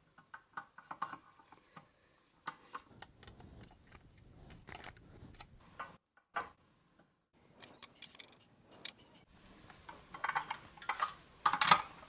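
Small clicks and taps of toy truck parts being handled: steel axles and rubber-tyred plastic wheels being fitted onto a pressed-steel Tonka truck chassis, with a denser run of louder clicks near the end.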